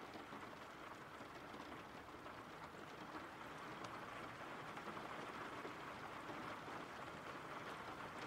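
Faint, steady rain: an even hiss with faint drop ticks, from a rain ambience track.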